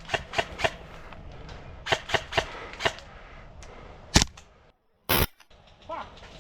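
Airsoft guns firing single sharp shots in quick groups: three at the start and four around two seconds in. A louder single crack comes just after four seconds, and a short loud burst just after five.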